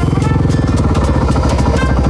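Motorcycle engine running at low road speed, a steady low pulsing, over background music.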